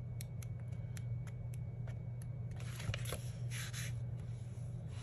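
Sticker book pages being turned and handled: light paper ticks in the first couple of seconds, then a paper rustle about three seconds in as a page turns over. A steady low hum runs underneath.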